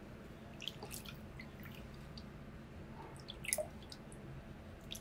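Faint drips and small splashes of water in a plastic basin as a baby monkey is bathed, with a few short wet clicks, the loudest about a second in and again about three and a half seconds in.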